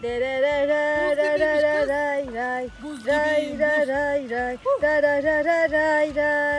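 A single unaccompanied voice singing long, wavering held notes in a melody, with two short breaks. It starts abruptly.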